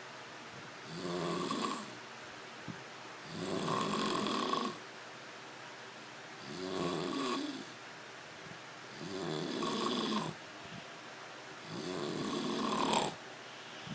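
Snoring: five loud snores in a steady rhythm, each about a second long, coming roughly every two and a half seconds with quieter gaps between.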